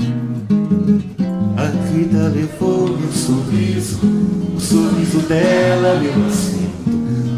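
Acoustic guitar strummed in a steady rhythm with a picked melody line over it: an instrumental break between sung verses.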